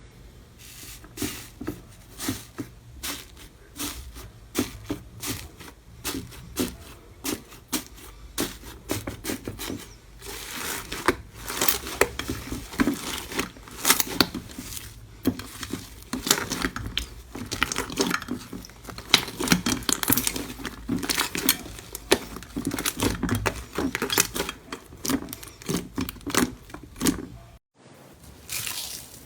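Slime being squeezed and poked by hand: a close run of small sticky pops and crackles, busier and louder from about a third of the way in. A brief silence near the end.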